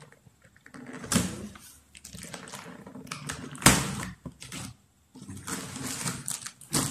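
Scissors cutting through the plastic wrapping on a cardboard box, with crackling and rustling plastic in irregular bursts. One sharp, loud crackle comes a little past halfway.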